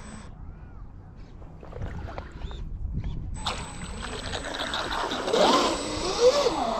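RC model catamaran's motor whining. It starts about halfway through and swoops up and down in pitch as the throttle is worked.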